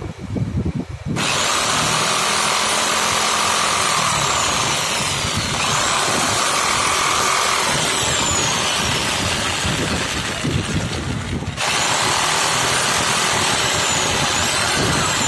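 Electric jigsaw cutting through a painted wooden board: a loud, steady sawing noise that starts about a second in, drops briefly near eleven seconds, then picks up again.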